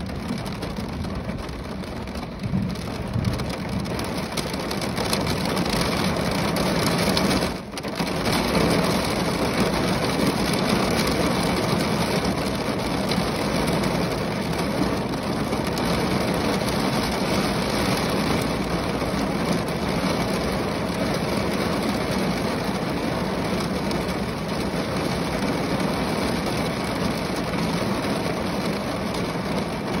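Rain falling on the roof of a car: a steady dense hiss of many small drop impacts, with a brief dip in level about eight seconds in.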